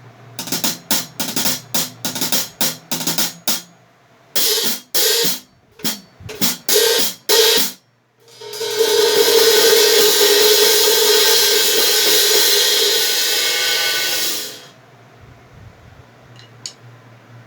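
Pair of Heartbeat Classic series 16-inch hi-hat cymbals, top cymbal mounted on top, being played: a run of quick, short closed strokes, then slower, longer strokes, then about six seconds of continuous open wash that is cut off suddenly near the end as the hats close.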